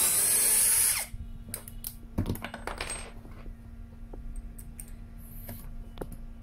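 Cordless drill (Toyoko 21V) running as it bores into a soft pine board, its motor pitch dropping as it stops about a second in. Then light metallic clicks and a short rattle as drill bits are handled and the bit is changed in the chuck.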